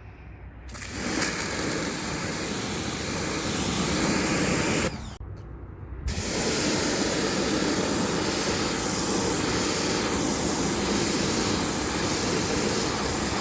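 Sun Joe SPX 3000 electric pressure washer running, its 15-degree nozzle spraying a jet of water at algae. The steady spray starts about a second in, stops for about a second near the middle, then starts again and runs on.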